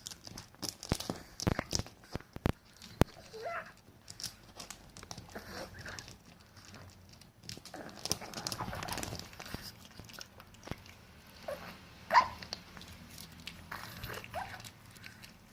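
A Chihuahua eating, with quick crunching and clicking chews, and a few short high-pitched cries scattered through.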